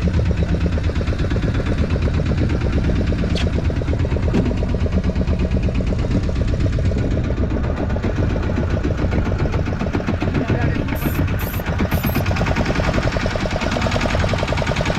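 Fishing boat's engine running at a steady idle, a fast, even chugging of firing pulses.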